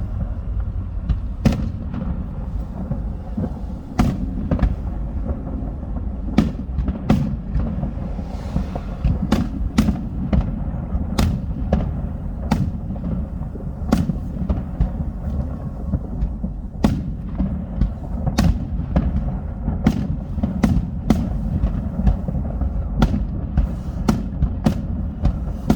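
Aerial fireworks going off in a steady irregular series of sharp bangs and cracks, roughly one a second, over a continuous low rumble.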